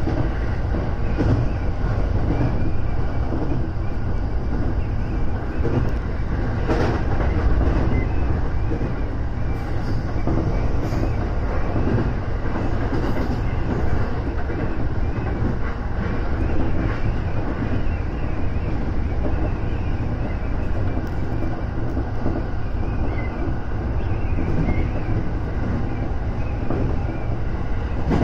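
Electric commuter train running along the line, heard from inside the front car: a steady low rumble with a few clicks from the wheels passing over rail joints.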